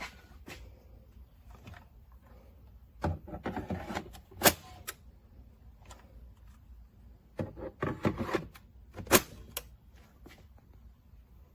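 Two bursts of clicking and clattering, each lasting about two seconds and each ending in a single sharp, loud click.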